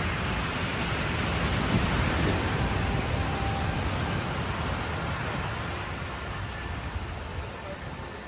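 Pacific Ocean surf: a wash of breaking waves that swells during the first couple of seconds and then slowly subsides.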